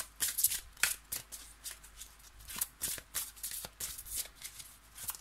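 A deck of divination cards being shuffled by hand: a run of quick, irregular card flicks and riffles.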